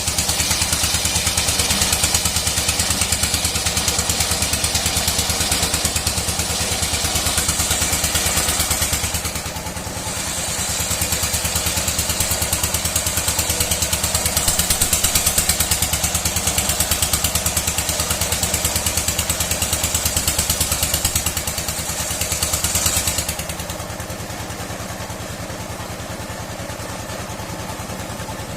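Old sawmill machine cutting dry mahogany: a steady engine sound under a loud high hiss of the blade in the wood. The cutting hiss breaks off briefly about a third of the way through, then stops about four-fifths through, leaving the machine running on its own.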